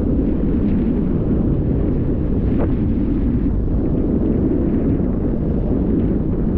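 Wind buffeting the microphone while on the move: a steady low rumble with no clear engine tone.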